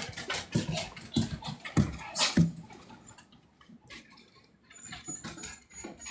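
Dogs' claws clicking and pattering on a hard floor as the dogs move about, a quick run of taps for the first couple of seconds, then only a few scattered clicks.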